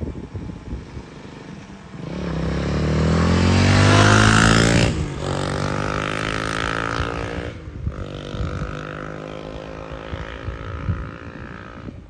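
Honda CRF300L single-cylinder dual-sport motorcycle engine accelerating hard: it pulls up in pitch, shifts up about five seconds in, pulls again, shifts again about three seconds later, then climbs more gently in the higher gear.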